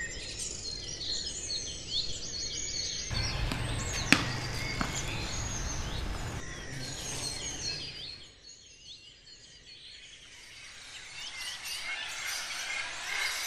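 Outdoor ambience of many birds chirping and calling, with a low background rumble for a few seconds and a single sharp knock about four seconds in.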